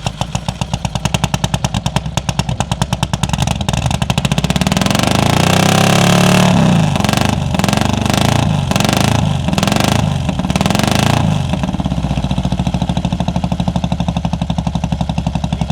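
Harley-Davidson FXR's freshly swapped-in V-twin engine running just after its first start: an uneven idle, a rise in revs, then a series of quick throttle blips in the middle before it drops back to a steady idle.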